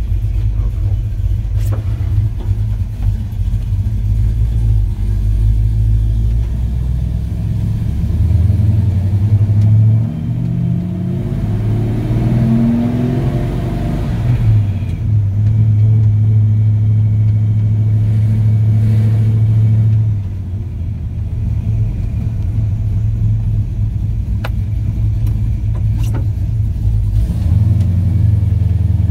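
The 355 small-block Chevy V8 running through Hooker headers and dual exhaust while the truck is driven: the engine pulls and revs up, with the note dropping back briefly about ten seconds in and again around twenty seconds in.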